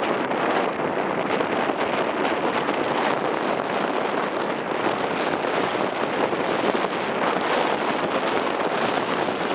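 Strong wind buffeting the microphone aboard a moving ferry: a steady, loud rushing noise.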